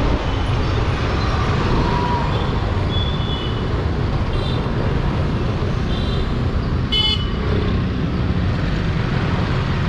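Busy street traffic heard from a moving scooter: a steady low rumble of engines and road noise, with several short vehicle-horn toots, the loudest and clearest about seven seconds in.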